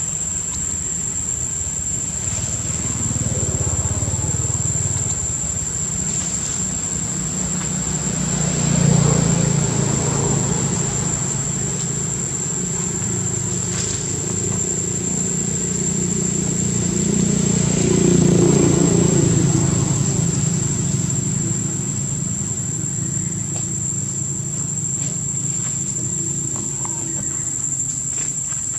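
Low engine hum of passing motor vehicles, swelling and fading twice, about a third of the way in and again past the middle, over a steady high-pitched insect drone.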